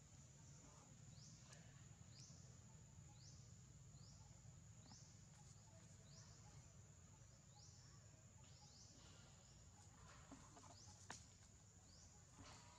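Faint outdoor natural ambience: a steady high-pitched drone with short rising calls repeating about once a second, and one sharp click near the end.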